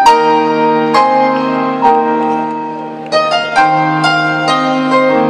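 Solo piano played live and amplified in an arena: chords struck about once a second and left ringing, then a quicker run of notes from about three seconds in.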